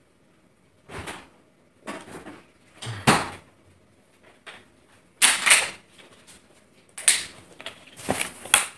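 Household handling noises in a small room: a string of short knocks, clatters and rustles, about eight in all. The loudest is a half-second rustle about five seconds in.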